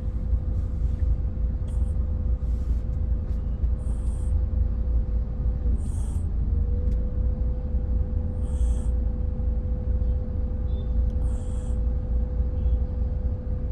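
A little one snoring in sleep: a short, high, wheezy breath about every two to three seconds. Under it runs a steady low rumble and a constant hum.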